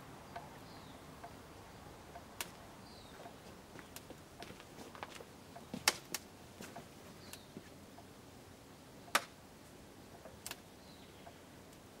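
Scattered sharp clicks and ticks at irregular intervals, the loudest about six and nine seconds in, over a faint steady background with a few faint bird chirps.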